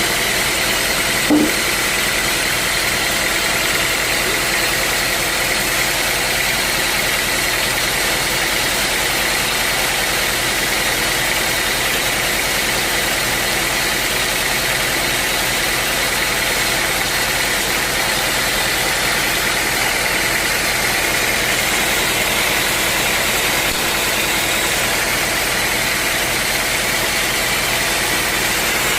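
Sawmill machinery running steadily: a constant mechanical hum with a thin high whine over it, and one short knock about a second in.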